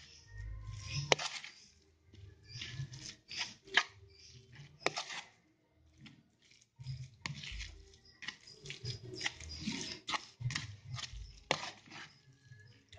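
Metal spoon stirring and scraping a thick, moist mix of mashed tofu and grated coconut in a plastic bowl: irregular scrapes and clicks, with a short pause about six seconds in.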